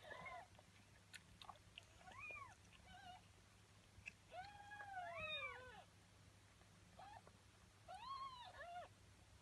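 Newborn kittens mewing: thin, high cries that rise and fall, a few short ones early on, then a longer bout about halfway through with two kittens calling over each other, and another cry near the end.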